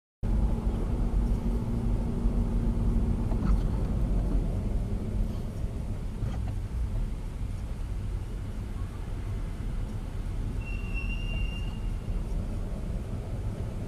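Steady low rumble of a car driving slowly, heard from inside the cabin through a dashcam microphone. It begins abruptly just after the start.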